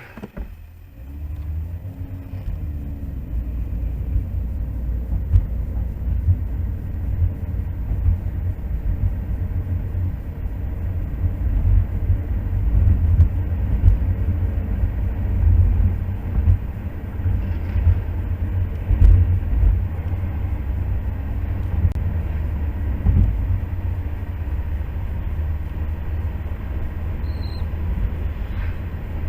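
Car driving along a road: a steady low rumble of engine and road noise that fades in over the first couple of seconds.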